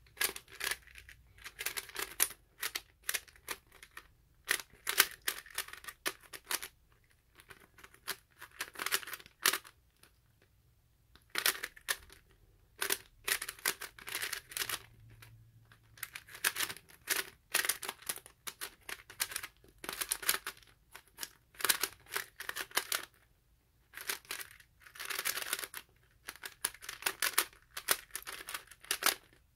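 Lego-brick 3x3 puzzle cube being turned fast during a speedsolve: rapid plastic clacking of the layers in bursts, with short pauses between them. The solver finds this cube turns poorly and locks up.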